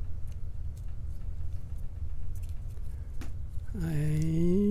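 A few light metallic clicks as a picked lock's core is pushed out of its housing with a brass follower tube, with one sharper click about three seconds in, over a steady low rumble. Near the end a man hums a long, slightly rising "mm".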